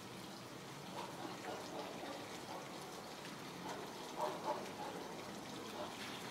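Steady splashing of an outdoor garden fountain, with a few faint short sounds over it, the loudest pair about four seconds in.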